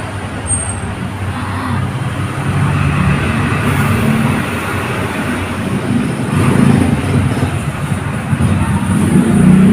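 Road traffic: a motor vehicle engine running close by, a steady low rumble over traffic noise, growing louder near the end.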